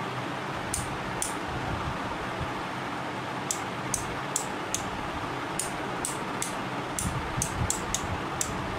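Relays on an 8-channel relay board clicking as they switch the bulbs on and off: about fifteen short, sharp clicks at uneven spacing, coming faster in the second half, over a steady hiss.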